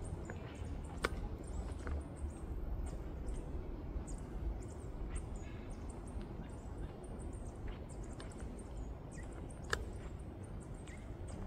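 Birds chirping in short, high, repeated calls over a steady low rumble, with a sharp click about a second in and another near the end.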